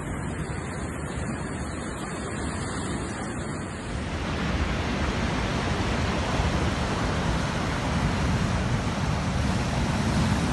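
Storm surf and strong wind: a dense, steady noise of waves breaking, which gets a little louder about four seconds in.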